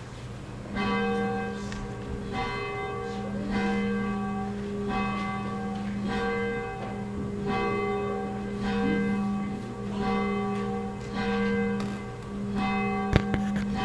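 A single church bell ringing, about ten strokes a little more than a second apart, each with the same pitch, its hum ringing on between strokes. A sharp click near the end.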